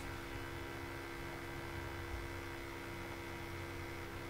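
Steady low electrical hum over faint hiss, the background noise of the recording setup.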